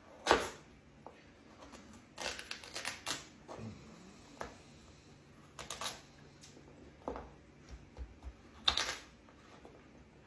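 Kitchen knife chopping a large carrot on a cutting board: irregular sharp knocks, some single and some in quick runs of a few. The loudest strikes come just after the start and again near the end.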